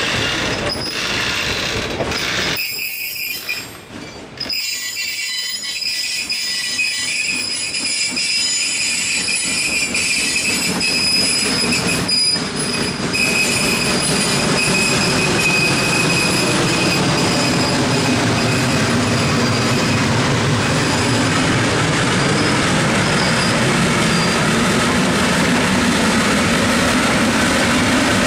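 Passenger cars rolling past on a curve, the wheels squealing against the rail in high thin tones, with some clicking over the rail joints. From about halfway on, a deeper, louder running sound builds as the Heisler geared steam locomotive pushing the train draws near.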